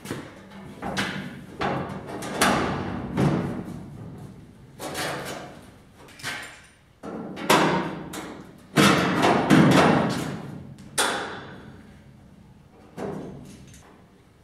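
A large sheet-steel Triumph Spitfire floor pan section being shifted and pushed into place in the car's body: a run of thumps, knocks and sheet-metal rattles with a ringing tail, heaviest from about seven to eleven seconds in.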